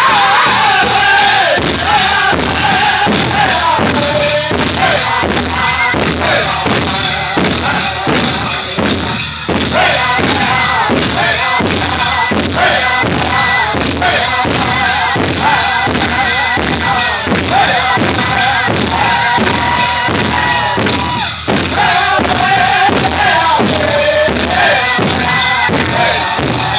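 Powwow drum group singing a chicken dance song: several voices singing high phrases that fall in pitch over a steady beat on a large powwow drum, about two beats a second. The beat breaks off briefly twice.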